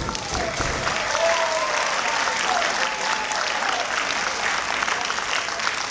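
Audience applauding steadily, with a few voices cheering over the clapping in the first few seconds.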